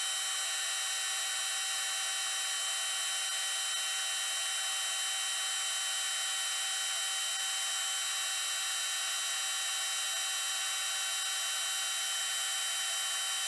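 Metal lathe running at steady speed, giving off a high-pitched whine made of several tones that holds without change.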